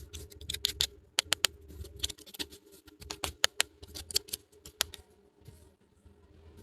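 Small hard plastic toy pieces clicking and tapping as they are handled and set down, in an irregular run of sharp clicks that thins out near the end.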